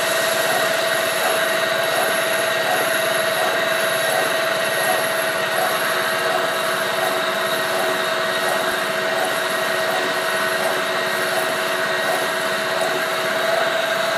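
Horizontal milling machine face-milling a block of Somers Electem No 5 die steel: a steady running and cutting sound with one clear held tone that pulses faintly a little more than once a second.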